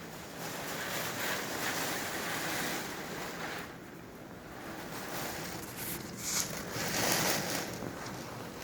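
Hurricane wind and surf rushing in gusts, swelling about a second in and again around six to seven seconds, with wind buffeting the microphone.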